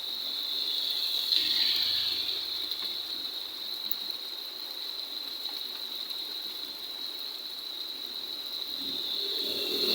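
Rain and running floodwater making a steady hiss, with a slight swell in level about a second and a half in.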